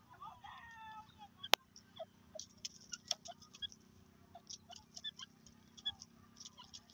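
Grey francolin pecking and scratching in dry, crumbly soil: a run of small irregular clicks and ticks, with one sharper, louder click about a second and a half in.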